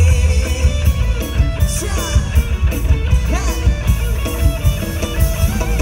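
Loud live Thai mor lam band music through a concert PA: electric guitar and drum kit over a heavy, pulsing bass beat.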